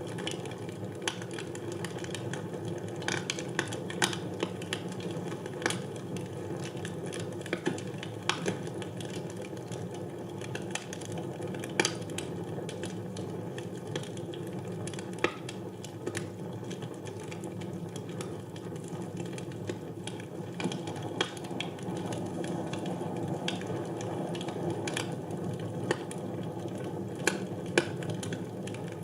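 Wood fire burning in a fireplace: a steady low rush of the flames with irregular crackles and sharp pops of burning wood, a few of them louder than the rest.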